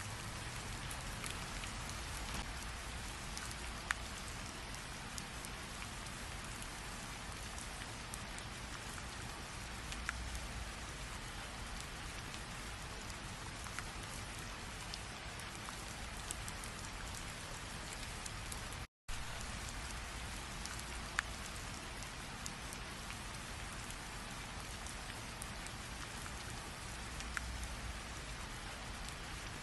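Steady rain falling: an even hiss with now and then a single louder drop tick. The sound cuts out completely for a split second about two-thirds of the way through.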